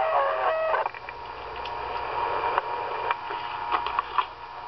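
RadioShack handheld scanner's speaker: a garbled radio voice for about the first second, then radio static with a steady whine and scattered clicks.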